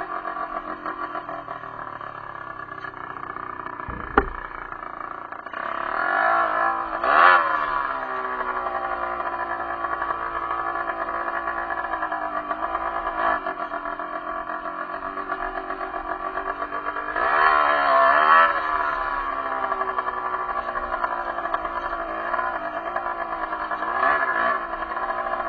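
Derbi enduro motorcycle engine running under a rider, its pitch climbing and falling back as it is revved about a quarter of the way in, again past the middle, and once more near the end, with a single sharp knock at about four seconds.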